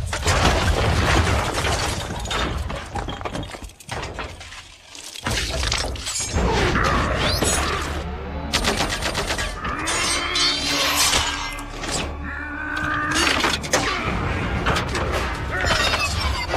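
Film battle sound effects of giant robots fighting: repeated metal crashes, thuds and breaking stone over the film's music, dipping briefly about four seconds in.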